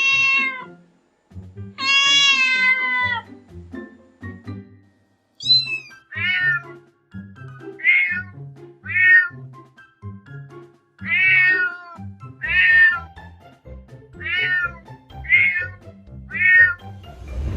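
Domestic cat meowing over and over: two long meows, then a run of short meows about one a second. Music plays underneath.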